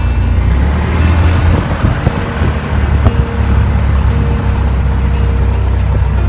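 Light aircraft's piston engine running steadily at low taxi power, heard from inside the cabin as a deep, even drone.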